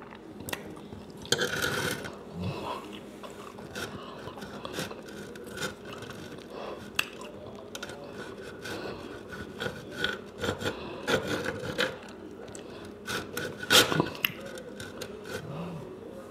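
Steak knife sawing through breaded country fried steak, the blade scraping against the tray and clicking against the fork, in repeated short strokes. The loudest scrapes come about a second and a half in and near the end.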